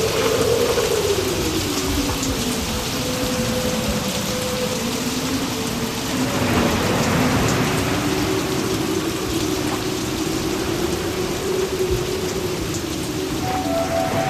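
Steady hiss of heavy rain, with a low tone slowly sinking and rising in pitch underneath it.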